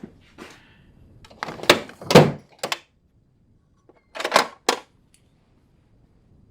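Two clusters of short knocks and rasps from hand work on the wiring, about two seconds apart.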